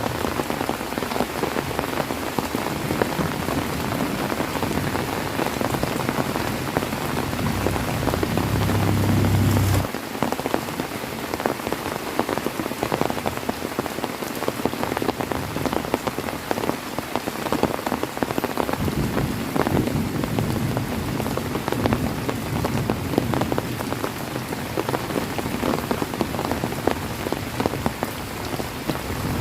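Heavy rain falling steadily, a dense patter of drops hitting surfaces. A low rumble swells and cuts off abruptly about ten seconds in, and another low rumble rises around twenty seconds.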